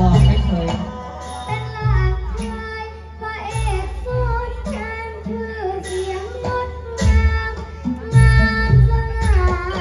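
A voice singing a melody over Thai traditional stage music, with deep drum beats throughout.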